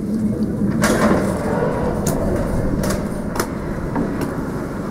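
Steady low room rumble with about five short, sharp clicks and knocks over a few seconds, the loudest about a second in.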